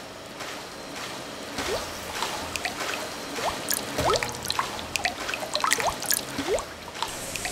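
Water dripping and bubbling: a run of small plinks and bloops, each rising quickly in pitch, growing denser from about a second and a half in.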